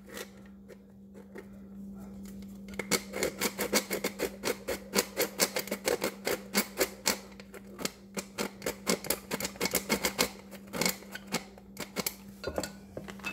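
Old metal flour sifter clicking rapidly as its mechanism is worked, sifting powdered sugar. The clicking starts about three seconds in and runs on in a steady stream, with a short pause near the end.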